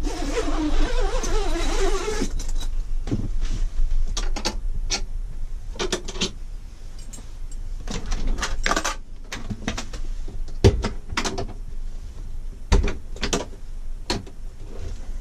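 Irregular clicks, knocks and rattles of hand-worked latches and safety pins as a camper trailer's slide-out shower compartment is unpinned and opened, after a dense rustling in the first two seconds.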